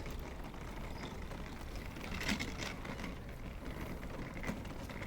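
Outdoor background noise, a steady low rumble, with a few brief clicks a little over two seconds in and again about four and a half seconds in.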